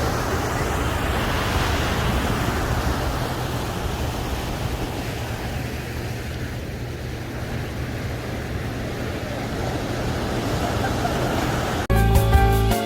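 Ocean surf washing in steadily at the shore. Music cuts in abruptly about a second before the end.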